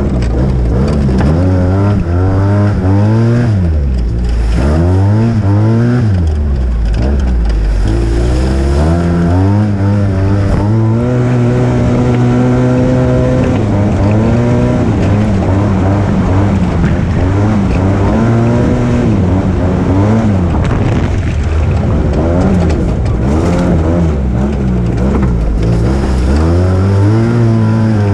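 Arctic Cat Wildcat side-by-side's engine pulling the machine along, revving up and easing off again and again, with a few seconds held at a steady pitch about halfway through.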